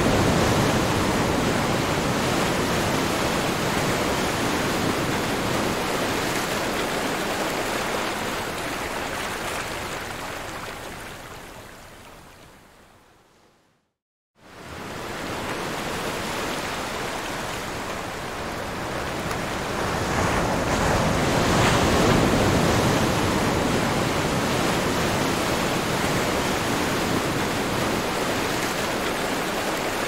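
Sea surf washing in, a steady rush of noise with slow swells. It fades out to a moment of silence about halfway through, then fades back in.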